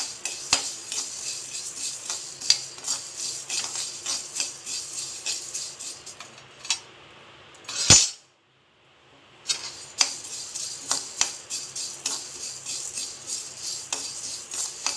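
Metal spatula scraping and clicking against a non-stick kadai while dry-roasting coriander seeds, with rapid irregular strokes. The stirring stops for about three seconds in the middle, broken by one sharp knock.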